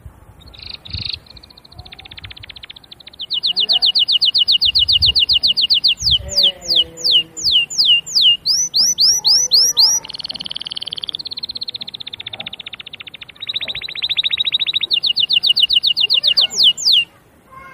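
Domestic canary singing a long, varied song: fast buzzy trills, a run of quick downward-sweeping notes about three a second, then rising looped notes and softer rolls, another fast trill and a few final sweeps that stop shortly before the end.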